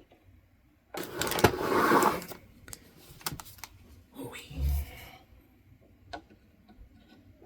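Hands handling PC hardware during RAM installation: a loud burst of plastic rustling about a second in, a few sharp clicks, then a second shorter rustle with a low thump, and a single click near the end.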